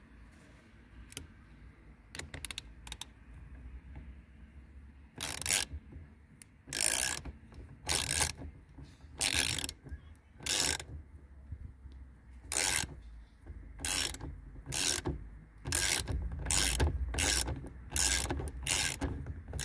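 Ratchet wrench rasping in repeated back-and-forth strokes as it drives a spline bit to tighten the steering wheel bolt on the steering column. A few faint clicks come first, then more than a dozen loud strokes starting about five seconds in, coming faster toward the end.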